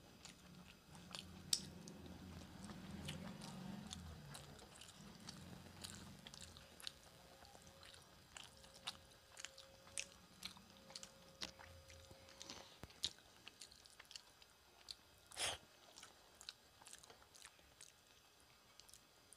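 Faint close-up chewing of a mouthful of rice and curry, with many small wet mouth clicks and smacks. There is a louder smack about fifteen seconds in.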